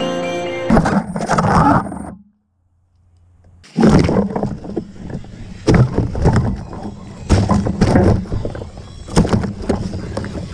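Background music ends within the first second. After a short silence, the onboard sound of a 5-inch FPV freestyle quadcopter comes in: its motors and propellers buzz and surge in irregular bursts as the throttle changes.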